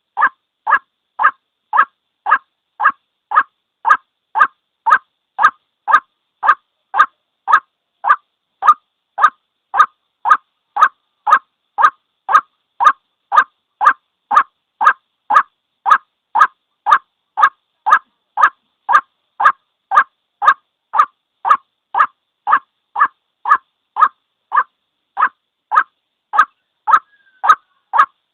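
White-breasted waterhen's call: one short note repeated at an even pace, about two a second, the same note every time. It is a recorded call looped as a trapping lure.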